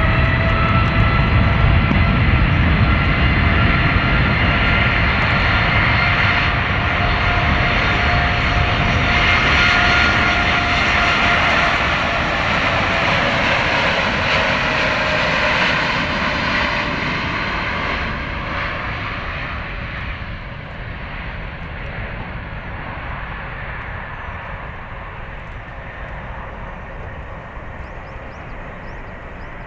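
Boeing 787-10's GE GEnx turbofans at takeoff thrust as the jet rolls down the runway: a loud jet roar with a fan whine in several tones that slide slowly down in pitch as it passes. The roar fades from about halfway through as the aircraft moves away.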